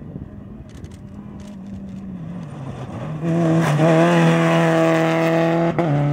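Renault Clio rally car on a gravel stage, its engine faint in the distance at first, then loud and close from about three seconds in. The engine is held at high revs, with tyre noise on the gravel, and there is a brief lift and gear change near the end.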